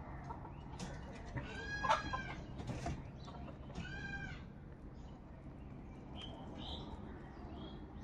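House crows cawing: two drawn-out caws about two seconds apart, then a few short, high chirps near the end, with faint ticks in between.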